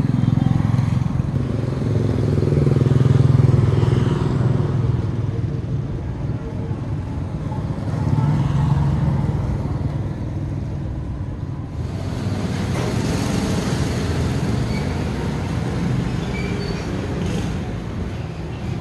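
Motorbike and road traffic passing close by, engines swelling and fading twice in the first half.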